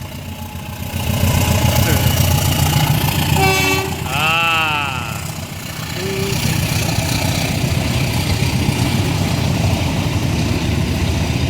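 Large vehicle's engine running close by with a steady low rumble. A brief horn blast comes about three and a half seconds in, then a call that slides up and down in pitch, and a short toot near the six-second mark.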